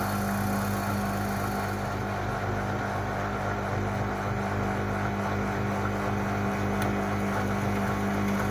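LG WD-80155NUP front-loading washing machine running with a steady, unchanging low hum.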